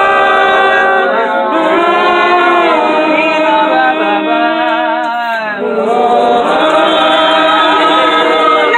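A congregation singing together, many voices at once with wavering vibrato-like pitch and no clear instrumental backing; the singing thins briefly about five seconds in, then picks up again.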